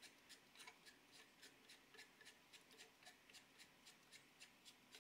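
Faint, evenly spaced clicking, about four clicks a second, while a bolt is turned by hand into a 3D-printed height adjuster on a laser engraver's module.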